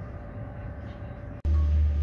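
Steady distant hum of aircraft engines across an airport apron. About one and a half seconds in, it gives way abruptly to a much louder, deep, steady rumble.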